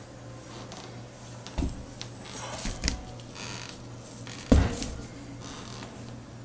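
Handling noises from a Garrett turbocharger being turned over by hand: scraping and rustling, with a knock about a second and a half in and a louder knock about four and a half seconds in as the turbo is set down on a tile floor. A steady low hum runs underneath.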